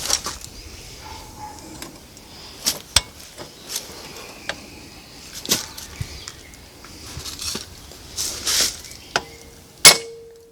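Scattered metal taps, knocks and clinks as pistons and connecting rods are knocked out of a Honda B18B1 engine block and handled. Near the end, one sharp metal strike is the loudest sound and leaves a steady ringing tone.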